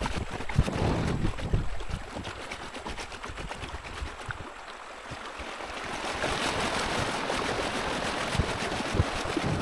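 Shallow river water rushing and splashing around a plastic fishing kayak's hull as it is pulled through the current, growing louder about six seconds in, with wind buffeting the microphone in low thumps.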